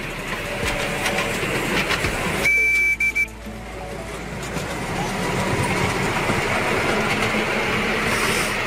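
Miniature ride-on train running along its track, with one short, high whistle toot about two and a half seconds in. The running noise grows louder from about five seconds on.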